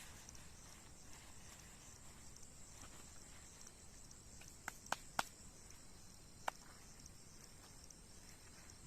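Insects, likely crickets, chirping steadily in a high-pitched pulsing chorus, with four short sharp clicks or knocks about halfway through.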